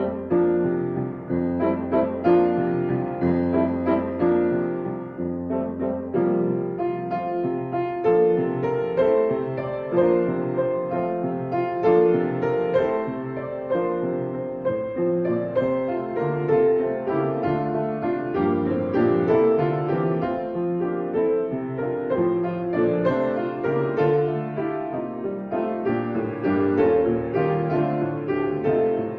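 Piano playing, with struck notes and chords sustaining over one another.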